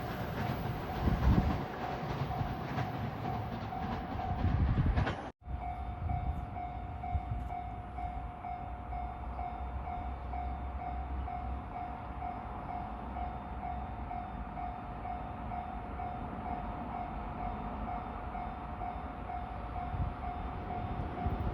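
Electronic warning bell of a Japanese railway level crossing ringing in an even, repeating pulse while a train passes, its rumble and rattle loudest for the first five seconds. After a sudden brief break the bell keeps ringing over a fainter rumble.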